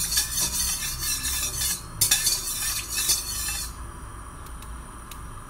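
Metal spatula scraping and stirring around a stainless steel wok as a little oil heats, in two spells of about two seconds each, then quieter with a few light taps.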